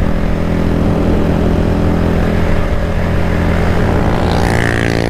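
Motorcycle engine running at a steady cruising speed, with wind and road noise over it.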